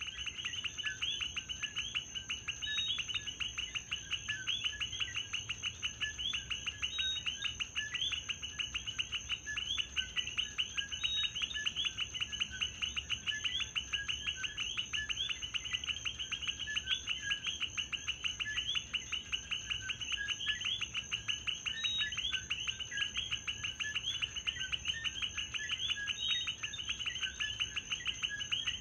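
A chorus of common coquí frogs, many calling their two-note "co-quí" over and over in overlapping succession, each call ending in a short rising chirp. A steady high-pitched hum runs beneath them.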